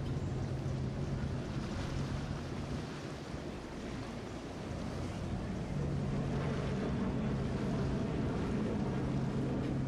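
Motor yacht passing under power: a steady low engine hum over the hiss and splash of its bow wave and wake, with wind on the microphone. The hum dips a little in the middle and comes back stronger after about six seconds.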